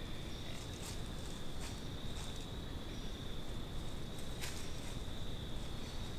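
A steady high-pitched insect trill, with a few scattered crunches of steps in dry leaf litter as deer walk in. The strongest crunch comes about four and a half seconds in.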